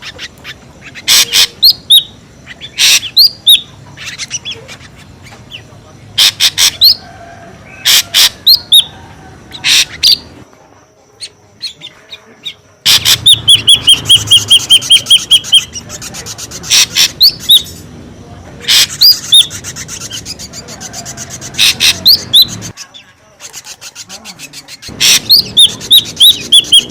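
Ashy drongo calling noisily: loud sharp call notes mixed with short downward-sliding whistles. Midway it gives a long run of quick, evenly repeated notes. The sound drops out abruptly twice.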